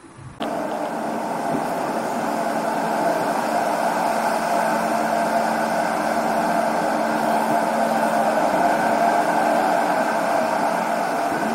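Loud, steady drone of machinery and ventilation on a ferry's enclosed steel vehicle deck. It cuts in suddenly about half a second in, a dense hum with a steady low tone beneath it.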